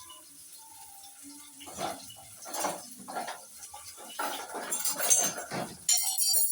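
Metal cooking pot and utensils knocking and clattering in a series of short, sharp hits. A bright, ringing metallic clink comes near the end.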